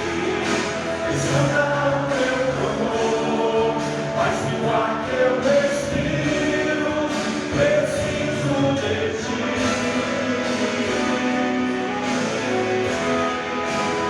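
Gospel praise song: several voices singing over instrumental accompaniment.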